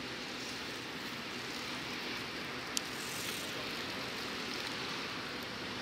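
Piper PA-28-161 Warrior III's four-cylinder piston engine running steadily at a distance, under a steady hiss. One sharp click about three seconds in.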